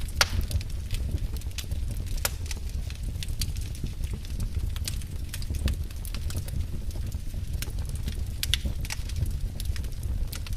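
Wood fire crackling in a fireplace: irregular sharp pops and snaps over a steady low rumble, with one louder pop just after the start.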